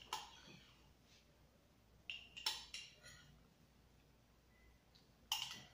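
Metal spoon clinking against a ceramic mug while scooping ice cream: a handful of short, faint clinks spread out with quiet between.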